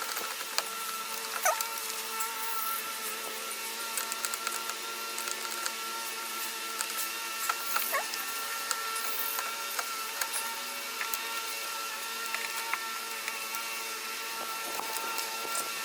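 Scattered small clicks and taps of pliers and plastic wiring plugs being worked loose from a refrigerator's circuit board, over a steady background hum. The plugs are stuck tight and hard to pull.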